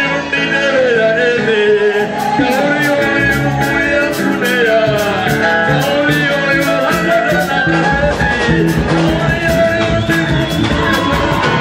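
A man singing into a microphone over amplified backing music with a steady beat.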